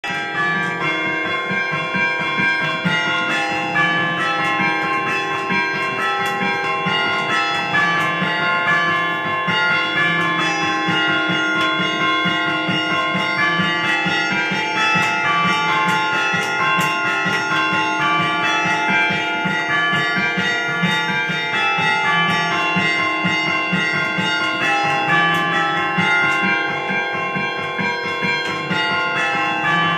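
Several church bells of a Russian Orthodox church rung together in a continuous peal, with rapid overlapping strikes and the tones of the different bells ringing on into each other.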